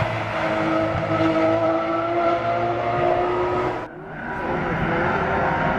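A Porsche 991 911 GT3 R race car's flat-six engine running at high revs under acceleration, its pitch climbing slowly. About four seconds in the sound dips abruptly and another race car engine takes over.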